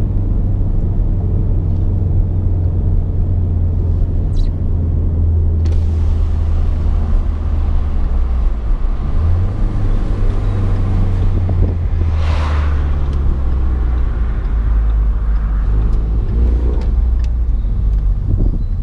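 2015 Ford Mustang's 2.3-litre turbocharged four-cylinder EcoBoost engine running steadily on the move. About nine seconds in its note changes pitch, and a brief rushing sound comes about twelve seconds in.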